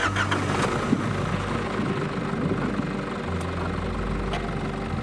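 Off-road 4x4's engine running at idle, heard from inside the cab, its note changing about three seconds in as the driver works the gear lever to set off.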